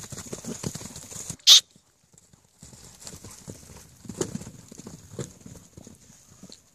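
Hoofbeats of several Akhal-Teke-cross horses cantering loose on grass: a quick, uneven drumming of dull thuds. About a second and a half in, a short, loud rushing burst of noise cuts in, followed by about a second of near silence before the hoofbeats resume.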